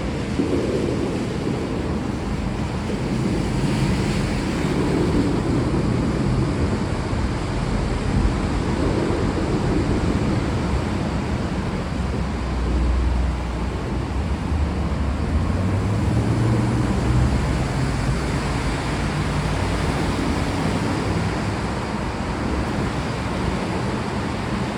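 Steady heavy rain, with a low rumble of distant thunder that swells up about halfway through and fades a few seconds later.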